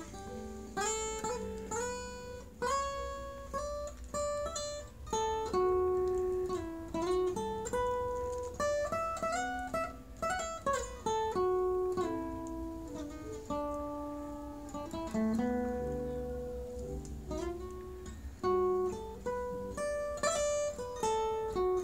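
Martin acoustic guitar playing lead: a picked melodic line of single notes, each plucked note ringing into the next.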